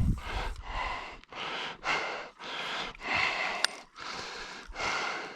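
Heavy breathing close to the microphone: a regular series of hissy breaths, roughly one a second. A brief click comes near the end.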